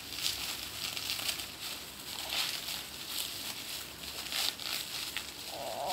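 Plastic bubble wrap crinkling and rustling as it is handled and pulled open, with scattered sharp crackles.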